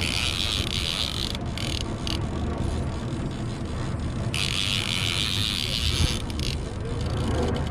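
Fishing reel being cranked in two spells, a whirring hiss of about a second and about two seconds, over a steady low rumble.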